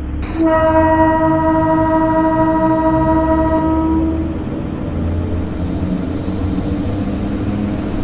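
Train horn blowing one long steady note that lasts about three and a half seconds, over the steady low rumble of a train running on the tracks.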